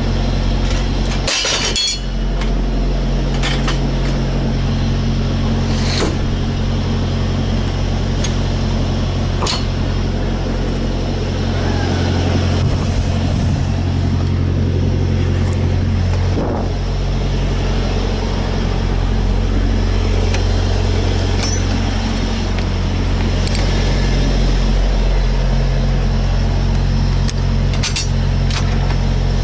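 Steady low engine drone with occasional sharp metal clanks and clinks from a cargo load bar being set in a trailer and the trailer's rear door latches being handled, with a cluster of clanks near the end.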